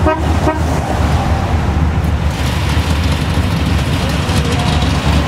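Classic cars driving past slowly in a line, their engines running with a steady low rumble. A car horn gives a few short toots right at the start.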